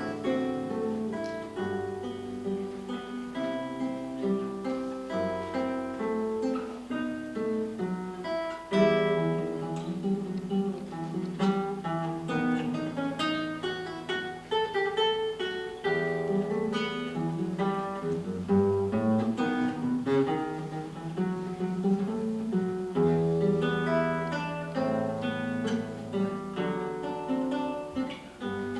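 Solo classical guitar, fingerpicked: a melody of plucked notes over a line of bass notes.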